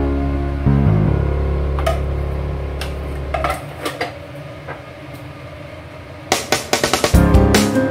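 Acoustic guitar background music dying away, then a quick run of sharp clicks and clinks near the end as the music picks up again.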